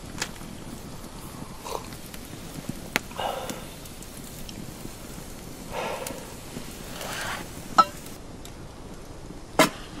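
Winter tent-camp ambience: a steady hiss with a few soft swishes and scattered sharp clicks, the loudest click near the end.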